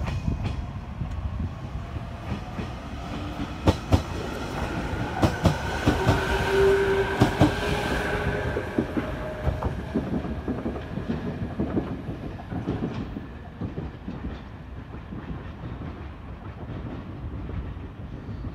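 JR Kyushu 787 series electric train pulling out and moving away, its wheels rumbling and clicking sharply over rail joints and points, with a whine that rises in pitch as it gains speed. It is loudest a few seconds in and then fades as the train draws off.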